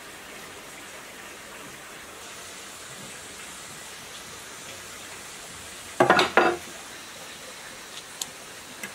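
A quick cluster of three or four sharp metal knocks, a metal rod struck against a pulley to drive it onto a generator shaft, over a steady background hiss. A few faint clicks near the end.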